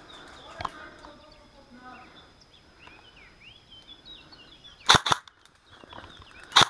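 Airsoft guns firing two short bursts of sharp shots, three or four about five seconds in and two or three more near the end.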